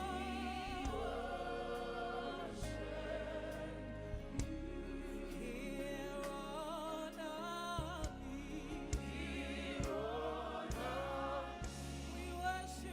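Gospel worship singing: voices hold long notes with wide vibrato over instrumental accompaniment that keeps a steady low bass note.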